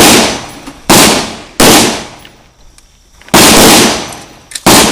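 Rifle shots fired one at a time at an uneven pace, five in under five seconds, each ringing out briefly after the crack.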